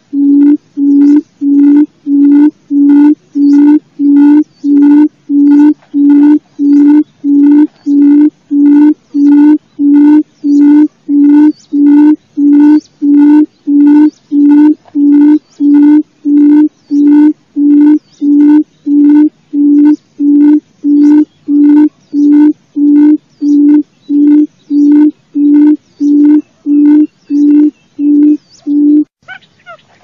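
Quail call used as a trapping lure: a loud, low hooting note, steady in pitch, repeated about three times every two seconds. The series stops about a second before the end.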